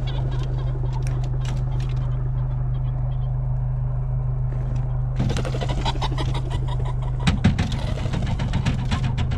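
A vehicle engine idling steadily, with a burst of rapid wing flapping from about five seconds in as pheasants flush from an opened crate. There is a thump a little after seven seconds.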